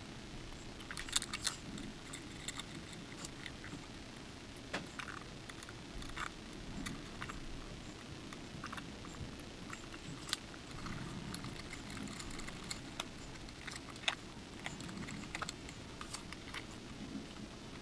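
Scattered small clicks and taps of hand work on a guitar body at the bench, irregular and light, over a low steady background hum.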